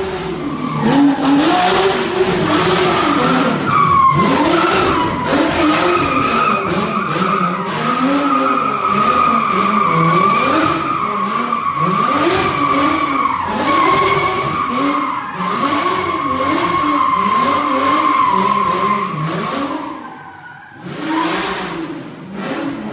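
A car drifting: a long, steady tyre squeal over an engine revving up and down again and again. It dies away near the end, with one short burst of squeal just after.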